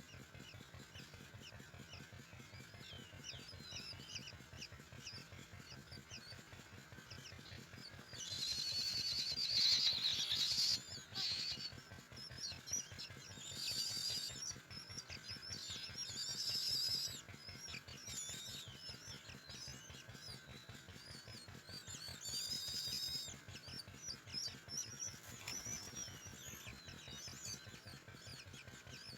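Myna nestlings crying for food: rapid, high chirping throughout, rising into several loud, harsh bouts of begging calls, the first about a third of the way in, others around the middle and later.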